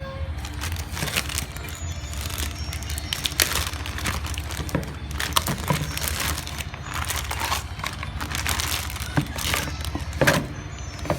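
Irregular crackling and crinkling with scattered sharp clicks and knocks, over a steady low hum.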